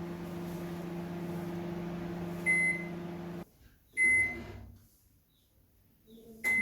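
Microwave convection oven running with a steady hum while being set to preheat. A keypad beep comes about two and a half seconds in and the hum cuts off soon after; a second beep with a low thud follows, then near quiet, and a third beep near the end as the oven starts running again.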